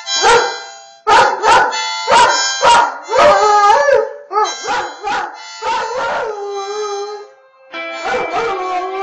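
Harmonica played in a run of short chords, then held notes, while an Airedale terrier howls along, its pitch wavering up and down.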